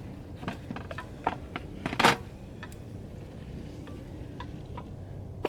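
A few clinks and knocks from a nesting camp cookware set being handled, with pots, lid and detachable handle tapping against each other. The loudest clank comes about two seconds in.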